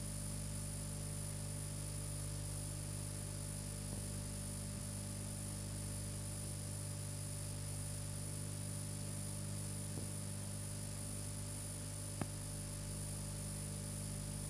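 Steady electrical hum and hiss from an old film soundtrack with nothing else playing, broken by a few faint clicks, the sharpest one near the end.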